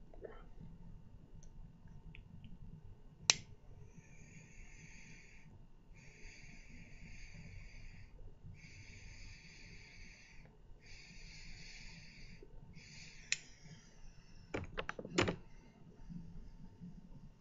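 A pipe lighter clicks on and its flame hisses in about five spells of roughly a second each while the pipe is puffed and relit, then it clicks off, followed by a few sharp clicks.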